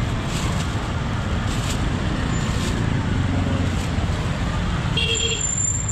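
Steady rumble of street traffic with engines running past. A short high tone sounds about five seconds in.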